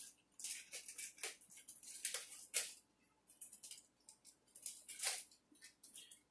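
Kitchen scissors snipping open a plastic bag of pizza dough, the plastic crinkling between a series of short, irregular cuts.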